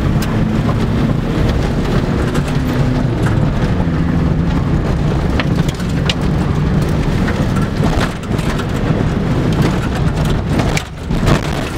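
Opel Corsa 1.5-litre diesel engine running under way, heard from inside the cabin, with tyres rumbling over a gravel track and scattered sharp ticks and knocks from stones and the body.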